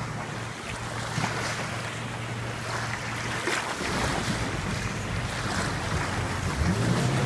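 Kawasaki jet ski engine running over rushing water, with wind on the microphone. Near the end the engine note rises sharply as it revs up.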